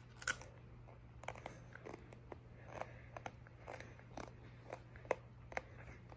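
A thin black chip bitten and chewed close to the microphone: one crisp crunch near the start, then faint, irregular crunching chews.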